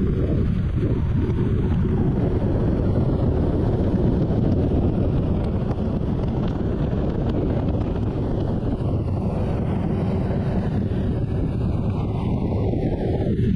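Inline four-cylinder engine of a 2004 Honda CBR1000RR Fireblade running through a Jardine titanium exhaust at a steady highway speed, with wind rushing over the microphone.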